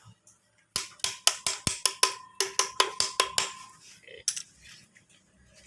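A run of about a dozen sharp metallic clicks, roughly four a second, each with a short ringing tone, from a metal hand tool being worked on the engine. One more click follows near the end.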